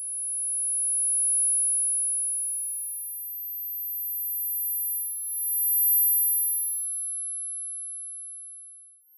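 Synthesized tinnitus neuromodulation sound: very high-pitched pure sine tones, each swelling in and fading out. A second, higher tone comes in about two seconds in and overlaps the first, a third takes over as they fade, and another higher one begins right at the end.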